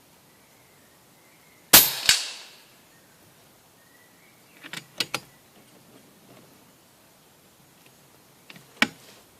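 An FX Elite air rifle fires one sharp shot, followed about a third of a second later by a second crack, like the pellet striking the target. Several smaller sharp clicks come about five seconds in, and another near the end.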